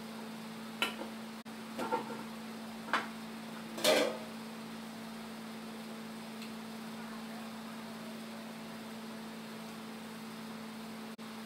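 A steady low hum, with four short knocks and clatters in the first four seconds as a metal cake pan and a cake layer are handled over a plate; the last, about four seconds in, is the loudest.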